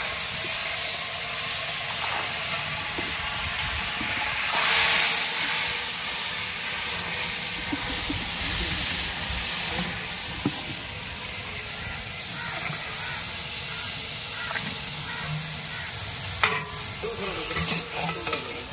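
Food sizzling and hissing steadily in a large metal cooking pot over a wood fire as it is stirred, with a few sharp clanks of the long-handled metal spatula against the pot, mostly near the end.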